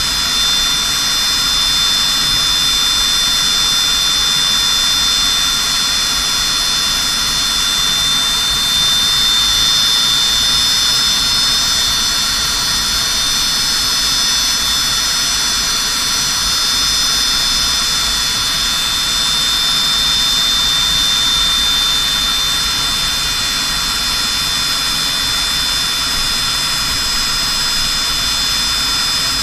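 Aircraft turbine engines running at low power while the plane taxis after landing, heard from inside the cockpit. It is a steady high whine with several tones over a low rumble, and it does not change.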